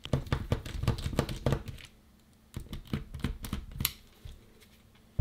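Plastic clicks, taps and rattles of a Metabo drill battery's cell pack being handled and flexed by hand: a run of quick clicks, a short pause, then another run ending in one sharp click.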